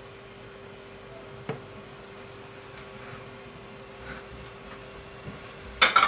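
Steady faint hum with a single small knock about a second and a half in and a louder short clatter near the end: kitchen items being handled while a juice is prepared.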